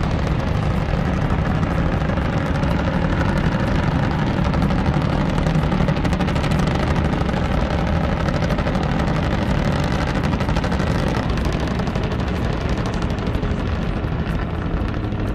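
T129 ATAK attack helicopters flying, their engines and rotors running steadily, mixed with rapid gunfire from their nose cannon.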